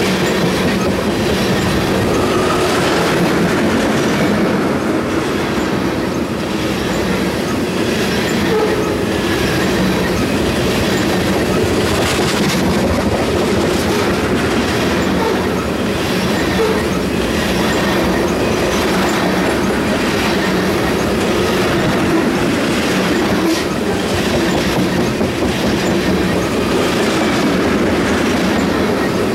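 A freight train of tank cars rolling past at close range: a steady rumble of steel wheels on rail, with the clickety-clack of the wheels passing over rail joints.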